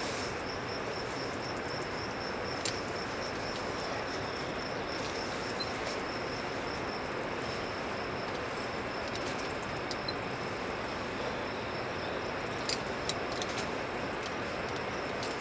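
Steady outdoor ambience with an insect trilling continuously at a high pitch, fading out about two-thirds of the way through, and a few sharp clicks.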